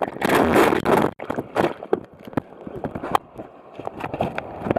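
Rushing, splashing surf water for about a second, cutting off sharply, then scattered sharp clicks and knocks.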